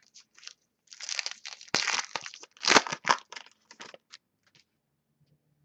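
A trading-card pack wrapper being torn open and crinkled by hand: a run of crackling tears and rustles from about one second in to about four seconds in, with a few small clicks around it.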